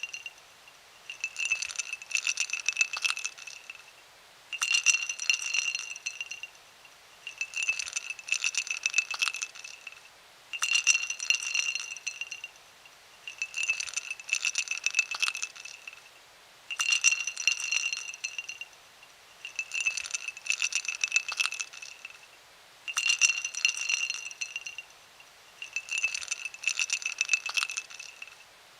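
Ice cubes dropped into a glass over and over, each drop a two-second cluster of rattling clinks as the cubes tumble against the glass, which rings. About nine drops, roughly three seconds apart.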